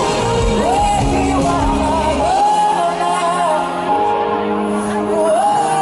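Live pop band playing while a woman sings long, held notes that slide up and down, without clear words, over sustained chords. The low drum beat drops out about two seconds in, leaving the voice and chords.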